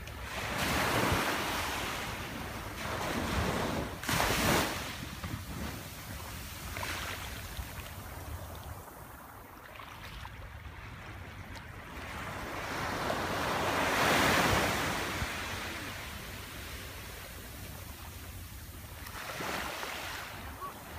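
Small waves washing up onto a sandy beach, the surf swelling and fading several times, with wind buffeting the phone's microphone as a steady low rumble.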